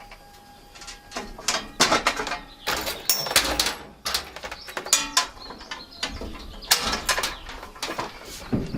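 Irregular knocks, clanks and scrapes of hand work on a tractor implement's PTO driveline, with a short squeak about three seconds in.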